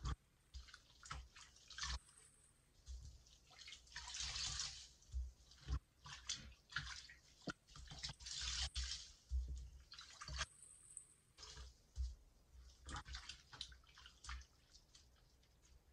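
Soapy foam sponges squeezed and swished in a sink of sudsy water: irregular wet squelches, splashes and drips, with two longer rushes of water as a sponge is wrung out, about four and eight seconds in.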